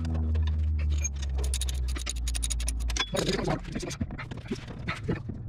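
Metal hand tools clicking, clinking and scraping under a vehicle as a socket ratchet is worked on transfer case housing bolts. A low steady hum with several overtones runs underneath and stops abruptly about three seconds in.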